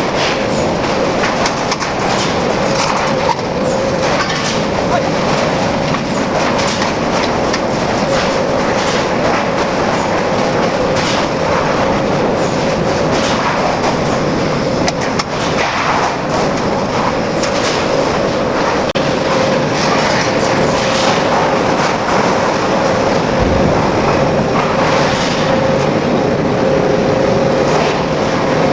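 Steel tube production machinery running: a loud, steady mechanical noise with a faint hum and frequent irregular metallic clicks and knocks.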